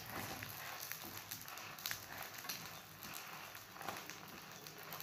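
Egg frying in oil in a pan under a roti pressed onto it: a soft, crackling sizzle with scattered small pops.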